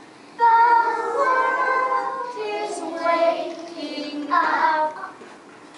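A group of young children singing a song together in unison, with held sung notes starting about half a second in and stopping shortly before the end.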